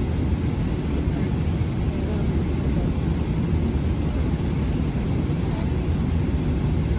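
Steady low rumble of passenger-aircraft cabin noise: engines and airflow heard from inside the cabin, even throughout with no distinct events.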